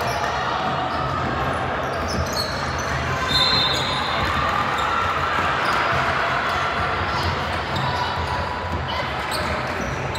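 Basketball game in a gym: a ball being dribbled on the court, with voices and room noise echoing in the hall. A brief high squeak comes about a third of the way in.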